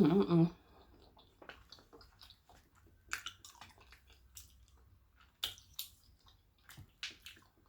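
Close-up chewing and wet mouth sounds of someone eating baked macaroni and cheese, with scattered sharp clicks and smacks. A brief voice sound opens it.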